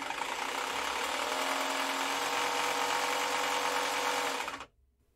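Drill motor of a DIY magnetic stirrer running steadily, spinning a wood screw as the stir bar in a tub of liquid. The motor stops about four and a half seconds in.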